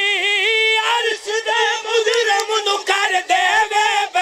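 A man singing a Punjabi-Urdu qasida unaccompanied, holding a long note with a wide vibrato; about a second in it breaks into quicker sung phrasing with other voices from the gathering overlapping it.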